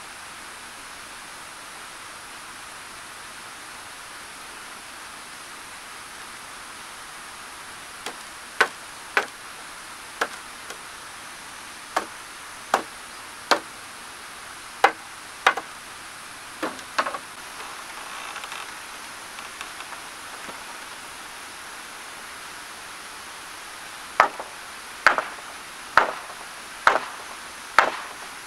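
Hammer blows on timber in a wooden roof frame. A steady hiss fills the first several seconds, then scattered sharp knocks begin, and near the end comes a run of five regular blows about a second apart.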